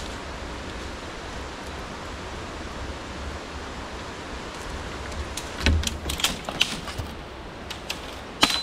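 Steady rush of river water, with a run of knocks and clatter starting past the halfway mark and a sharp clink that rings briefly near the end.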